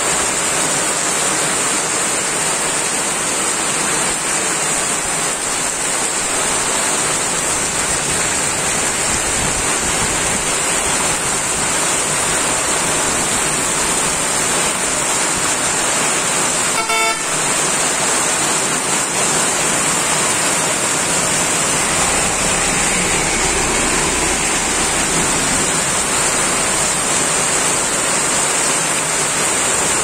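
Heavy rain pouring down steadily in a nor'wester (kalbaishakhi) storm, an even rushing hiss of water on the road. Just past halfway a vehicle horn sounds once, briefly.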